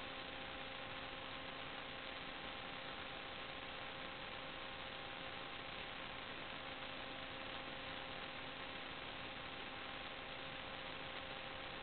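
Steady electrical hiss with a hum of several steady tones, the recording noise of a sewer scope camera system with nothing else sounding.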